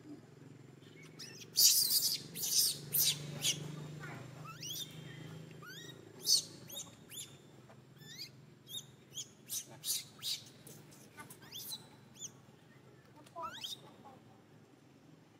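High-pitched animal calls: a cluster of loud, harsh shrieks about two to three and a half seconds in, then a string of short, quieter chirps that rise in pitch, spaced irregularly, one every half second or so.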